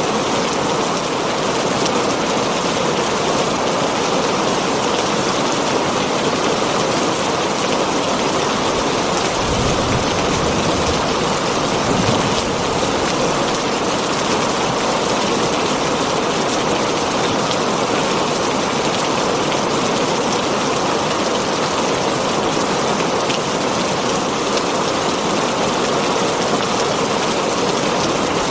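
Steady heavy rain drumming on a tin roof, with a brief low rumble about ten seconds in.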